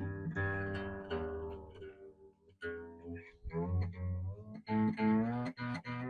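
Old Soviet-era acoustic guitar's strings plucked one after another during tuning, each note ringing on. Some notes slide in pitch as a stiff tuning peg is turned, and several quick plucks come near the end.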